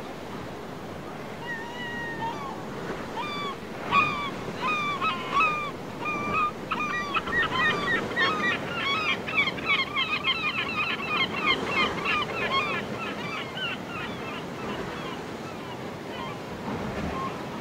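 A flock of birds calling over steady sea surf: scattered short calls that build into a dense, overlapping chorus around the middle, then thin out near the end.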